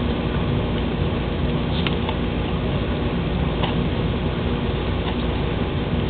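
Sleet ticking: a few scattered, sharp clicks over a steady background noise.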